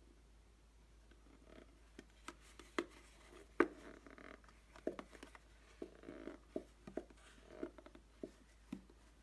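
White slime with polystyrene beads mixed in being squeezed and worked by hand, giving irregular sticky pops, clicks and short squelches that start about a second and a half in.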